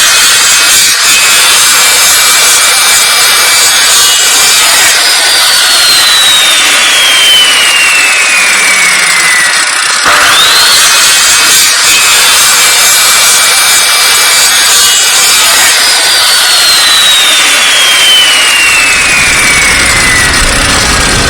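A high-speed motor whines with a hiss over it, twice: it spins up quickly, holds steady for about five seconds, then winds slowly down in pitch.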